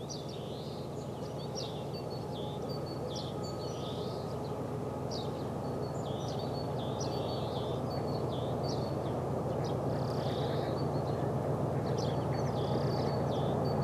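Pair of GE C36-7i diesel-electric locomotives running in the distance, a steady low engine rumble that grows slowly louder as they approach. Small birds chirp repeatedly over it, short high calls about once or twice a second.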